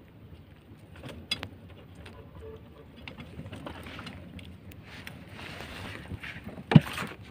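Small wooden fishing boat resting on calm water: a low steady background with a few light knocks about a second in, and one sharp knock on the boat near the end, the loudest sound.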